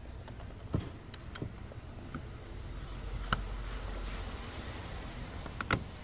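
Small sharp plastic clicks and handling rustle as the door latch cables are fitted onto the inner door handle mechanism, with a louder click past three seconds and a quick double click near the end.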